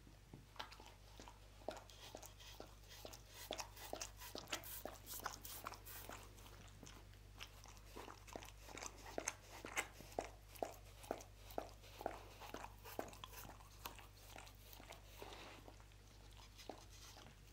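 Dog eating chicken soup close to the microphone: a run of wet licking and chewing clicks, about two or three a second, thickest in the middle.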